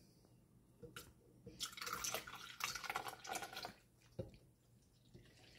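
Milk poured from a stainless steel cup into a blender jar, running and splashing for about two seconds, with a light knock of the container just before and just after.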